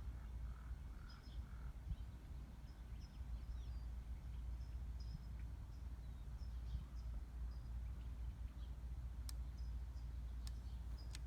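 Birds chirping here and there over a steady low rumble, with a few sharp clicks near the end.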